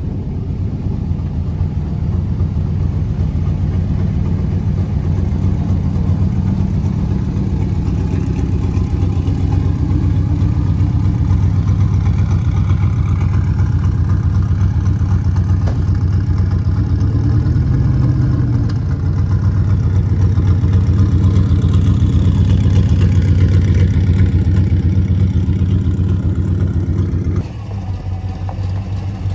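Late-1960s GMC pickup's engine running as the truck drives, steady and growing louder in the second half. Near the end it cuts abruptly to a quieter engine idling.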